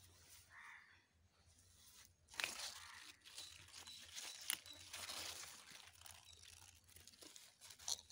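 Radish leaves rustling and dry soil crunching as a radish is pulled up by hand, starting about two seconds in, with a couple of sharper cracks.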